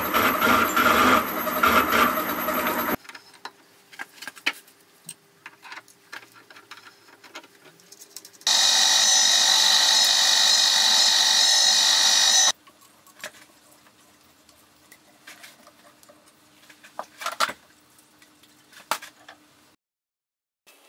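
Milling machine cutting the steel vise jaw in two loud spells. For about the first three seconds a counterbore plunges with a harsh, grinding cut. About midway a small cutter runs for about four seconds with a high, ringing squeal. Between and after these, a faint steady hum with light clicks.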